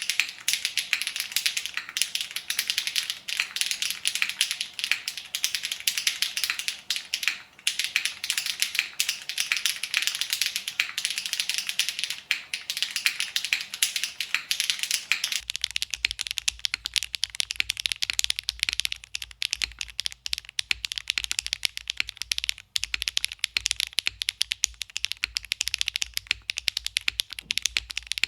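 Fast, continuous typing on a mechanical keyboard fitted with Keygeek B1 factory-lubed linear switches, each keystroke a sharp click. About halfway through the tone of the strokes changes, with less low body, and a faint low hum runs beneath them.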